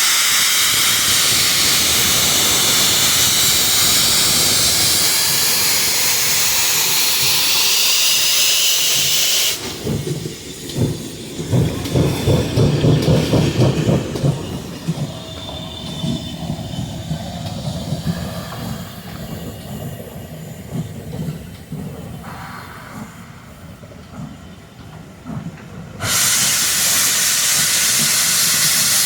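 Grange class 4-6-0 steam locomotive departing: a loud, steady hiss of escaping steam, then, about ten seconds in, rhythmic exhaust beats that fade away, before the loud steam hiss comes back abruptly near the end.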